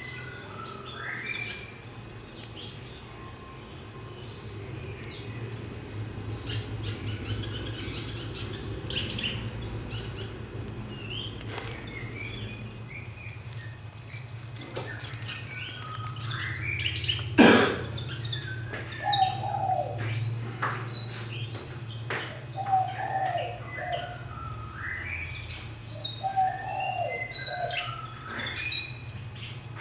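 Caged fantail singing: a busy series of short, varied whistled notes and phrases, with lower repeated phrases joining in the second half. One sharp knock sounds about halfway, over a steady low hum.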